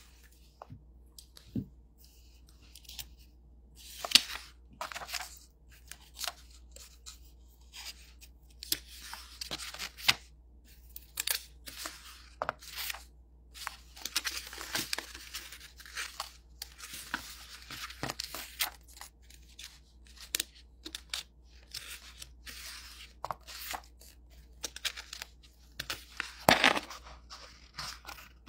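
Thin Bible pages being turned and rustled, a run of irregular papery swishes and crinkles, with the loudest flips about four seconds in and near the end, while looking for Luke chapter 24.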